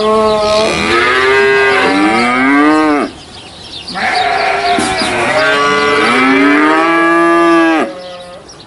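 Holstein calf mooing twice: two long bawls of about three seconds each, with a short pause between them. The pitch drops off at the end of each call.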